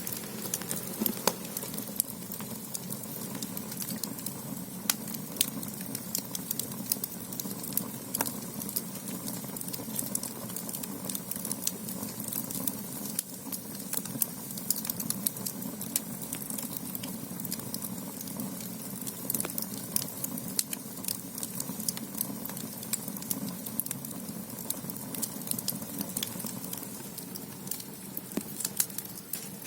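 Firewood burning in the firebox of a Korean ondol (gudeul) floor-heating system: a steady low rush of the fire with frequent, irregular sharp crackles and pops.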